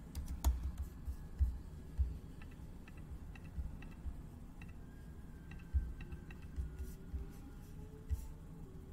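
Scattered faint computer mouse clicks and low desk thumps over quiet room tone.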